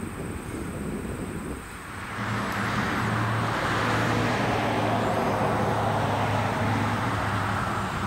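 A motor vehicle going by: a steady low engine hum and a rush of road noise that swell up about two seconds in and ease off near the end.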